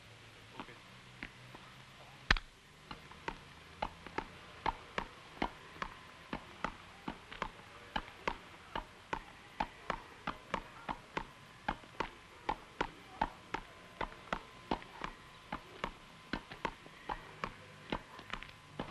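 A steady run of sharp taps, about three a second, over a faint low hum, with one louder knock about two seconds in.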